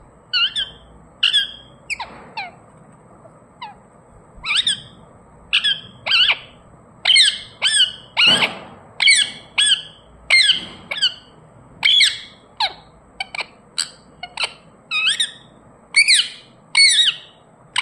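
Pet Indian ringneck parakeet giving a long series of short, sharp, high-pitched squawks and chirps, roughly one or two a second.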